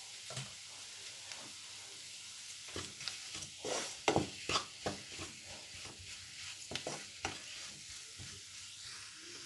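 Wooden spatula stirring and mashing boiled potato against a nonstick kadai, a run of short scraping strokes from about three seconds in until near the end, loudest around four seconds in. Under it a faint steady sizzle of the onion-and-potato filling frying in the pan.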